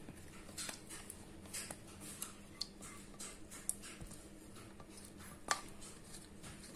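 Whisked yogurt being added onto spice-covered raw chicken in a ceramic bowl: faint soft wet sounds and a few light clicks, the sharpest about five and a half seconds in.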